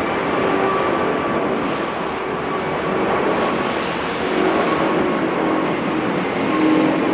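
Airbus A380's four Rolls-Royce Trent 900 turbofans running at takeoff power as the jet climbs out just after liftoff: a steady rush of engine noise with a thin whine over it.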